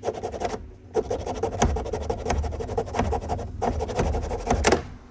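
Small handsaw cutting into a Jeep TJ dash piece: quick rasping back-and-forth strokes with a brief pause about a second in, stopping near the end. The saw is making slow progress.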